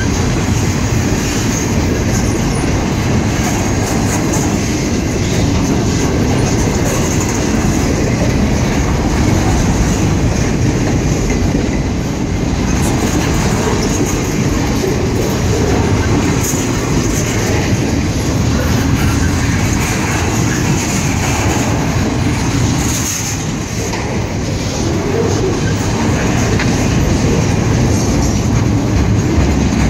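Intermodal freight train's container well cars rolling past close by: a steady, loud rumble of steel wheels on rail, with clatter over the rail joints.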